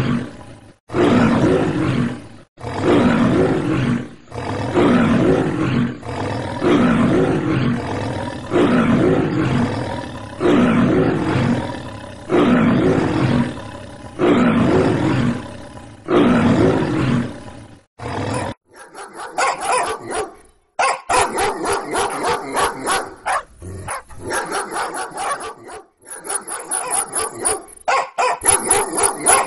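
A man imitating a lion, giving about ten long, deep roars one after another. About two-thirds of the way in, rapid excited barking of dogs takes over.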